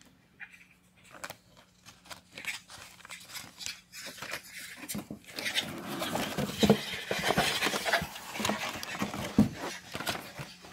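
Hands handling toy packaging: scattered light clicks and paper handling, then from about halfway a dense rustling and crinkling of a plastic bag and cardboard with sharp clicks and knocks as the box is rummaged through.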